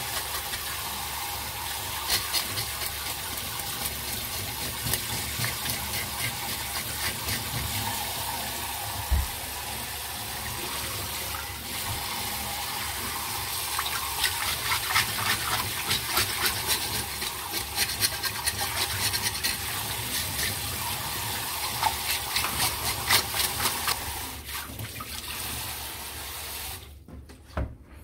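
Kitchen tap running and splashing into a stainless-steel bowl in a sink, with many sharp clicks and rasps of a fish scaler scraping scales off fish under the water. The running water stops near the end.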